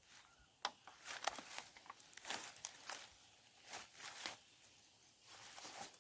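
Irregular rustling and crackling of leaves or grass being handled and pulled.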